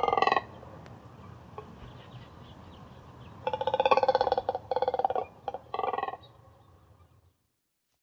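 Double-crested cormorant croaking with rough, rapidly pulsed croaks: one ending just after the start, then a run of about five croaks from about three and a half to six seconds in.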